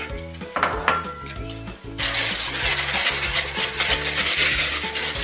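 Electric hand mixer with a wire whisk switched on about two seconds in, beating eggs and sugar in a bowl with a steady, loud whirring, over background music.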